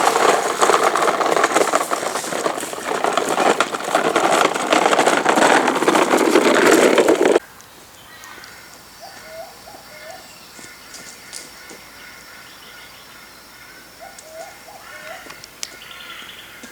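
Loud, dense crackling rustle that cuts off suddenly about seven seconds in. After it, quiet bushland with birds calling in short repeated phrases.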